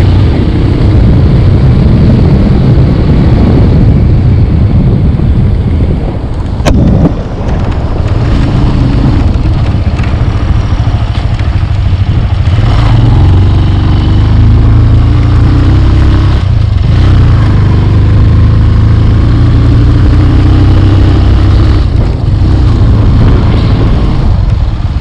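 Motorcycle running on a ride along a road, under heavy wind buffeting on the microphone. There is one sharp click about seven seconds in.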